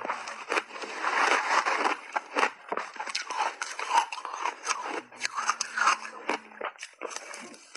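Close-miked crunching and chewing of a mouthful of shaved ice, a dense run of sharp crackles and crunches that thins out and quietens near the end.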